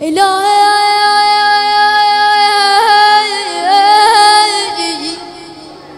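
A boy's unaccompanied voice chanting an Arabic supplication (du'a) into a handheld microphone, holding one long high wordless note. It breaks into quick ornamental turns about three seconds in and again a second later, dips in pitch between them, and fades out about five seconds in.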